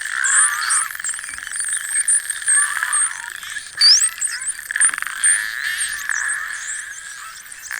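A group of Atlantic spotted dolphins heard underwater through a hydrophone, with many overlapping whistles. The whistles are short rising and falling sweeps, and one clear upward sweep comes about four seconds in. Rapid clicks and buzzing click trains run beneath them.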